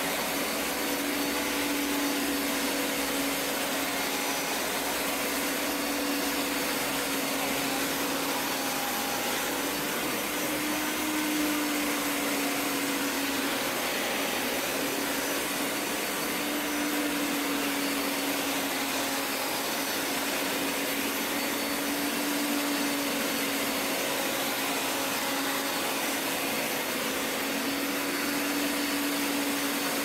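Hoover Power Scrub Elite carpet cleaner running on a hard floor: a steady motor whir with a hum that wavers slightly in pitch.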